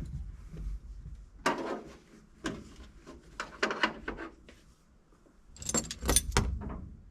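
Metal hardware being handled: a string of clinks and rattles, with a brighter jingling clatter about six seconds in.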